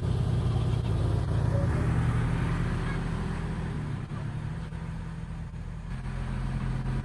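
Kubota L2501 compact tractor's three-cylinder diesel engine running steadily as the tractor drives away, growing fainter through the middle and louder again near the end as it comes back.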